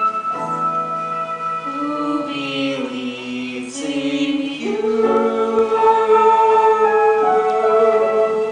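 Stage musical singing over instrumental accompaniment: voices holding long sustained notes, louder from about halfway through.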